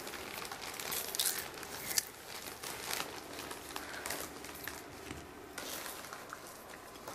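Foil snack bags crinkling in irregular crackly rustles as hands rummage in them for snacks.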